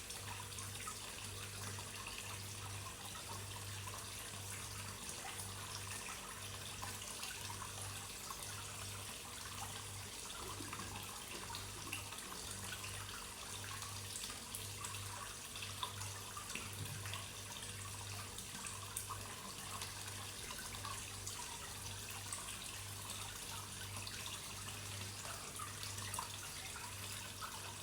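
Water trickling and splashing into a koi pond, a steady running hiss with small drips. Under it, a low hum pulses about one and a half times a second.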